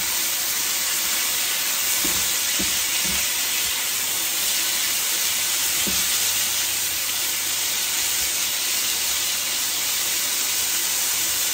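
Sliced red onion and bell peppers sizzling steadily in a hot frying pan as they are turned with metal tongs, with a few light knocks of the tongs against the pan in the first half.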